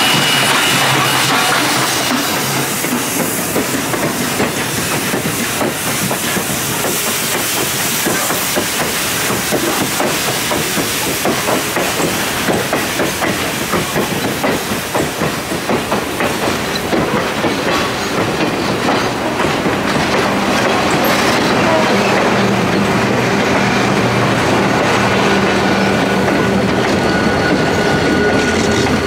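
Train wheels clattering over the rail joints in a loud, steady rush of track noise, with a low steady hum joining in after about twenty seconds.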